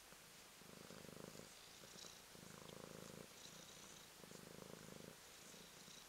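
Kitten purring close up while being stroked, in pulsing stretches of about a second with short breaks between them, four times over, starting about half a second in.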